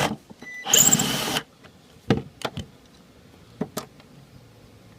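Cordless power screwdriver whirring for under a second as it backs out a screw holding the air conditioner's coil. A few light metallic clicks follow, from the screw and the tool being handled.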